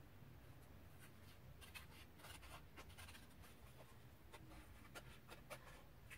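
Faint crinkling and scratching of a paper sticker sheet being handled as a mushroom sticker is picked off its backing, in short scattered ticks.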